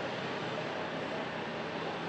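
Fire department pickup truck rolling slowly past at parade pace, its engine and tyres heard as a steady, even rumble and hiss.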